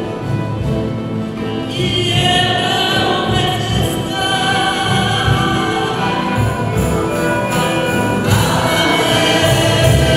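A woman sings a hymn into the microphone, with several voices singing along and an acoustic guitar accompanying. The sung notes are held, with new phrases beginning about two seconds in and again about eight seconds in.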